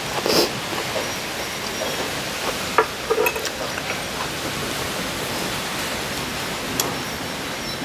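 Metal spoon and fork scraping and clinking against a ceramic plate a few times while food is scooped up, over a steady hiss. The clearest clinks come about three seconds in and near the end.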